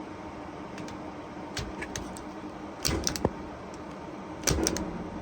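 Impact punch-down tool seating and trimming Cat6 wires in a patch panel's terminals: two sharp snaps about a second and a half apart, each followed by a quick rattle of smaller clicks, with a few fainter clicks before them.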